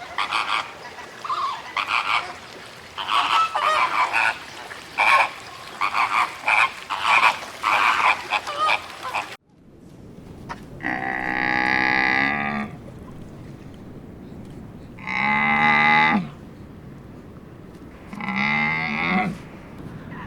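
Frogs croaking in a rapid run of short calls. After a sudden cut, three long drawn-out calls from a farm animal follow, a few seconds apart.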